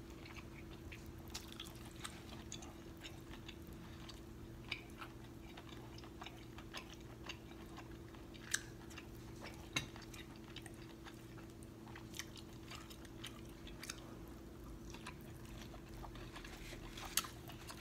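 Close-miked eating: quiet chewing, wet smacks and scattered small clicks as sauce-covered seafood shells are pulled apart and the meat is eaten, with a few sharper clicks now and then. A faint steady hum runs underneath.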